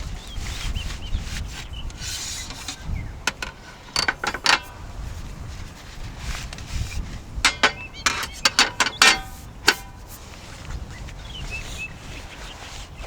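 Wind rumbling on the microphone, with a series of sharp clicks and knocks: a few about three to four seconds in, then a quick cluster from about seven and a half to ten seconds.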